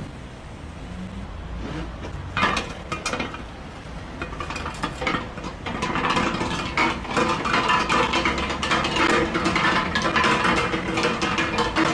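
Steel beer keg rolled by hand on its side over cobblestones, clattering and clanking with a ringing metallic tone. It starts about two seconds in and grows louder toward the end.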